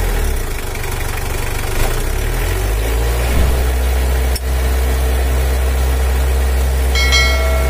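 Mitsubishi L300's 4D56 four-cylinder diesel idling steadily while its injection pump is being adjusted to make the throttle response snappier.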